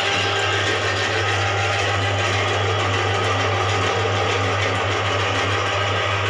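Electric drum-type drain cleaning machine running steadily, a constant motor hum as its spiral cable turns inside a clogged bathroom floor drain to clear the blockage.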